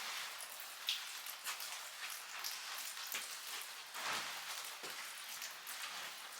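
Steady heavy rain falling, a constant hiss with many separate drops ticking close to the microphone. A brief louder swish comes about four seconds in.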